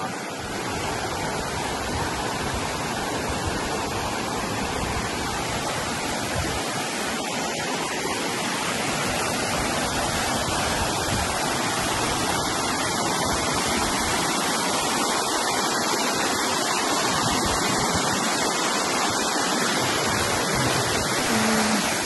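Small waterfall cascading over rock, a steady rushing of water that grows slightly louder over the first several seconds.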